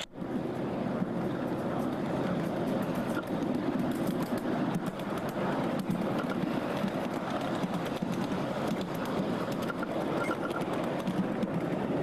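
Ride-on miniature train rolling along small-gauge track: a steady rumble of wheels on rail with many light clicks.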